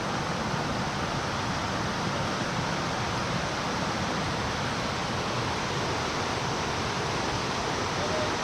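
Steady rush of flowing stream water, an even hiss with no distinct events.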